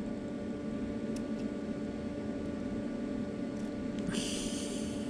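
Small sewing scissors picking at the paper wrapping inside a fabric-sheathed cable: a few faint clicks, then a brief scratchy rustle near the end, over a steady background hum.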